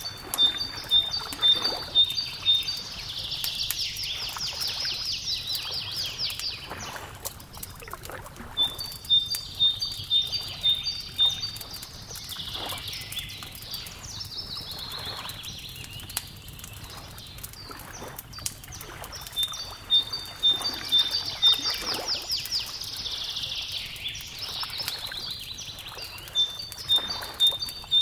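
A songbird repeats its song about every ten seconds, each time a run of short, evenly spaced high notes alternating between two pitches, then a fast trill. A wood fire crackles with scattered small pops throughout.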